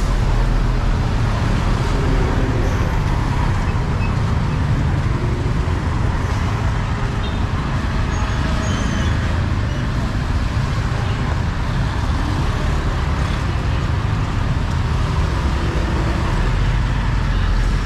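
Steady city street noise: motor traffic running with a constant low rumble, and faint voices now and then.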